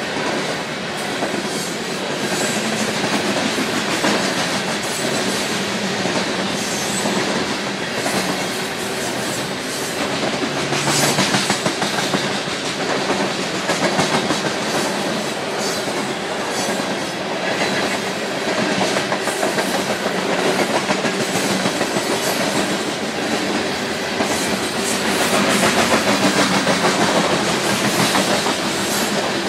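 BNSF covered hopper cars of a freight train rolling past at steady speed: a continuous rumble and rattle, with the wheels clacking over the rail joints again and again.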